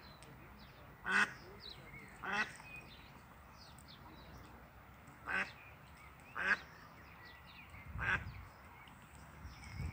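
Mallard hen quacking five times, loosely in pairs about a second apart, while her ducklings give faint high peeps throughout. A low dull bump comes near the end.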